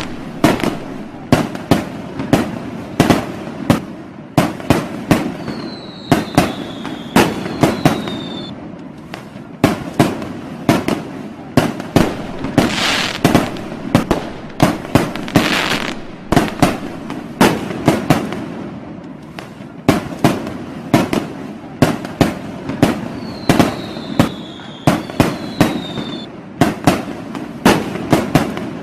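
Fireworks and firecrackers going off: a dense, irregular run of sharp bangs over continuous crackling. Twice a thin whistle glides downward.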